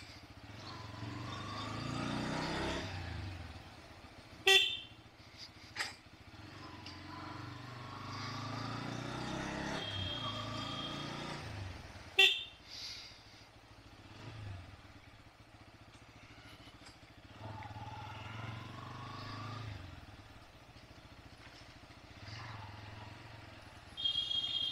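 Bajaj Pulsar N160 motorcycle engine running, its sound swelling and easing several times as the revs rise and fall. Two short, sharp horn honks cut through, about four and a half and about twelve seconds in, with another at the very end.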